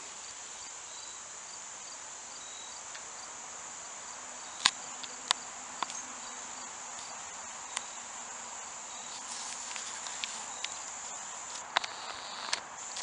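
Insects trilling steadily, with a cricket chirping about two or three times a second in the first few seconds. A few sharp knocks break in, the loudest about halfway through and two close together near the end.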